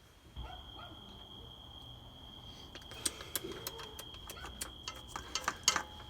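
Irregular light clicks and taps that come thicker in the second half, over a faint steady high-pitched whine.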